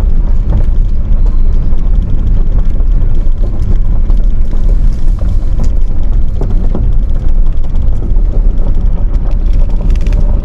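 A car driving slowly, heard from inside the cabin: a steady low rumble of road and engine noise, with scattered clicks and crackles.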